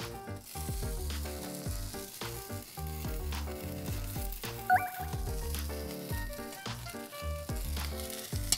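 Slabs of pork belly sizzling on a hot barbecue grill, heard over background music with a steady bass beat.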